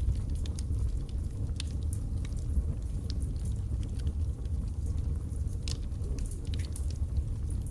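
Wood fire burning in a fireplace: a steady low roar of the flames with irregular sharp crackles and pops from the burning logs.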